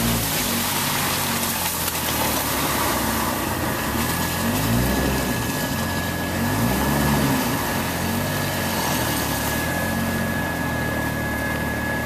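Jeep Wrangler engine running at low trail speed in low gear, revs rising and falling a few times, under a steady hiss. A thin steady whine comes in about four seconds in.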